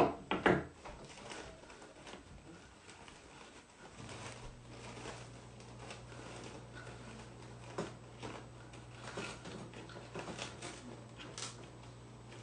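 Two sharp clacks at the start as metal scissors are set down on the table, then soft rustling and tapping as decoupage tissue paper is handled, pressed and folded around a table leg. A low steady hum comes in about four seconds in.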